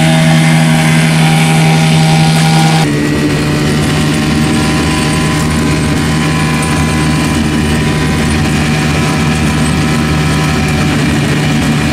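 Veterok 8 two-stroke outboard motor running at speed, driving a small boat across the water. About three seconds in, the sound cuts abruptly to a closer recording of the same engine from aboard the boat, still running steadily.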